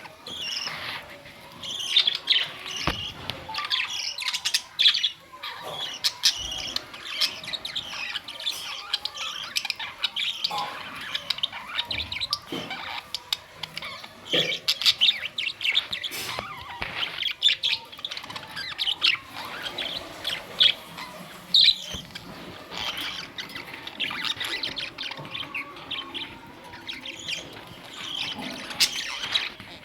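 Budgerigars chirping and warbling continuously, a flock of rapid, overlapping high chirps.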